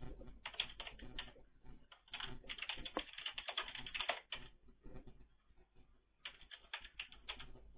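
Faint typing on a computer keyboard: quick runs of key clicks, a pause of about a second past the middle, then more keys near the end.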